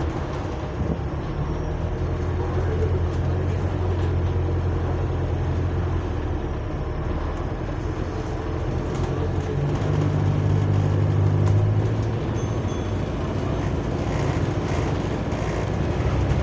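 Bus SLN 12402's engine heard from inside the passenger saloon while driving: a low, steady drone with road noise, swelling louder twice, most strongly about ten to twelve seconds in.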